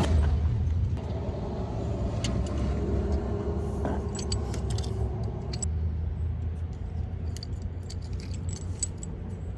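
Light metallic clinks and jangles over a steady low vehicle rumble, with a faint hum for a few seconds early in the stretch.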